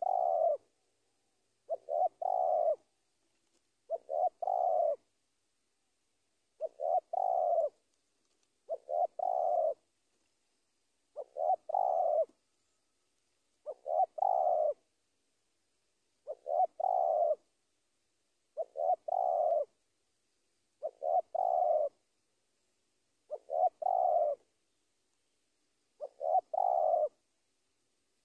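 Spotted dove cooing: a phrase of a couple of short notes run into a longer coo, repeated about every two seconds, about a dozen times. It is the territorial call a male gives to challenge a rival.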